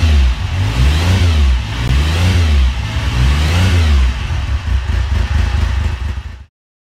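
Motorcycle engine revved up and back down three times, then running fairly steadily at speed, deep and loud, cutting off abruptly near the end.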